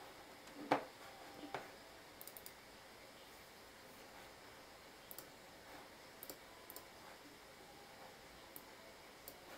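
Scattered clicks of a computer mouse and keyboard: a sharp louder click about a second in and another soon after, a quick little run of faint clicks, then a few isolated faint ones over a quiet room.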